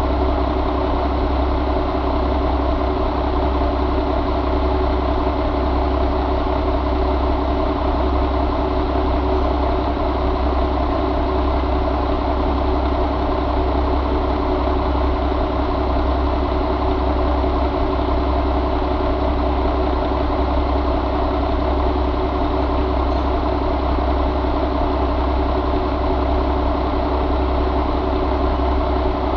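2006 Mack E7 inline-six diesel engine idling steadily.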